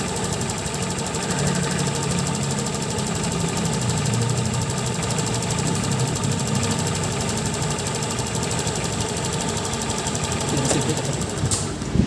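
Honda Click 150i scooter's single-cylinder four-stroke engine idling steadily. A sharp click comes near the end.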